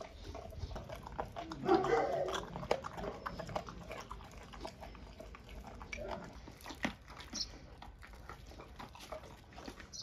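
A large dog chewing and tearing at a raw whole duck: a run of short wet crunches and clicks as its jaws work the carcass, louder for a moment about two seconds in.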